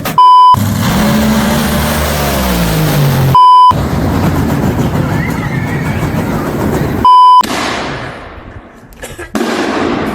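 Three short, loud electronic tone beeps about three and a half seconds apart, each cutting in after a brief silence. Between them runs a noisy rumble; in the first stretch a tone slides down in pitch.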